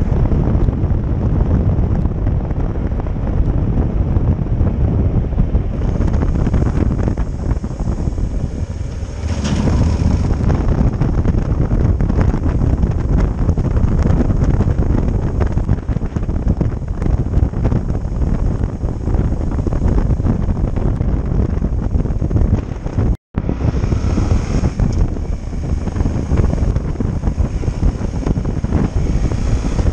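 Wind rushing over the microphone on a moving Yamaha XT1200 Super Tenere motorcycle, with the bike's engine running underneath. The noise is steady and heavy in the low end, with a break lasting an instant about three quarters of the way through.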